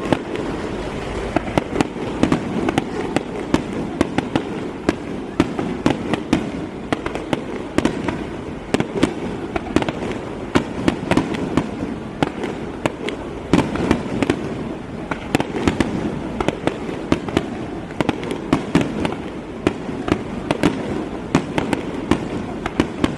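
Fireworks display: a rapid, irregular run of bangs and crackles, several a second, over a continuous low rumble.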